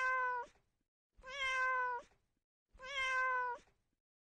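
Kitten meowing three times, about a second and a half apart; each meow is a high, steady call of just under a second, and all three sound alike.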